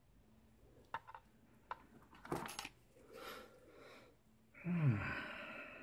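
Small metallic clicks and a brighter clink as a brass Euro lock cylinder and tools are handled. Near the end a man gives a low murmur that falls in pitch.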